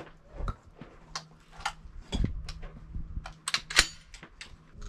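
An irregular run of sharp cracks and clicks from shotguns being fired and handled, the loudest crack a little before the end.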